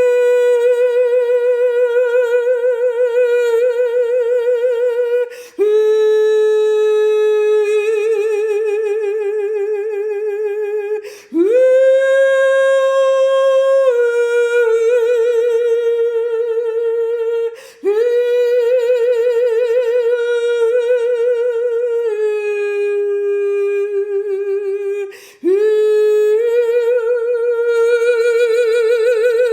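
A woman singing or humming wordless long notes without accompaniment, each held for several seconds with a slow vibrato and stepping up or down in pitch from one note to the next, with brief breaks for breath between them.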